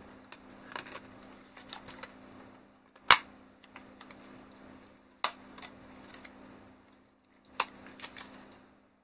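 Plastic clicks and handling of a DJI Mavic Pro drone as it is turned over and its arms are worked: three sharp clicks about two seconds apart, among softer taps and rubbing.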